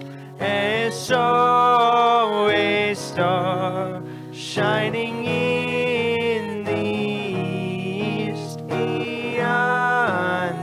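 Worship song sung by a lead voice over acoustic guitar, in phrases with short breaks between them.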